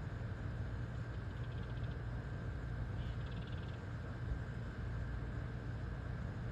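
Northern cardinal giving two short, faint, rapid trills, high-pitched and evenly pulsed, over a steady low rumble.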